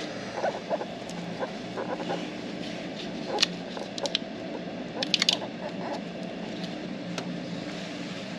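Hands handling wiring loom and a rubber grommet: scattered small clicks, scrapes and rustles, with a quick cluster of clicks about five seconds in, over a steady low hum.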